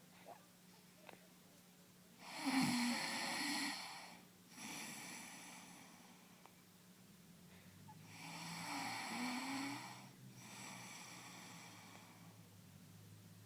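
Baby snoring: two long, noisy snoring breaths about six seconds apart, each followed by a softer breath.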